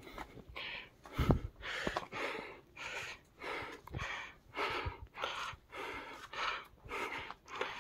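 A person breathing hard and fast close to the microphone, about two breaths a second: out of breath from climbing uphill. A low thump comes about a second in.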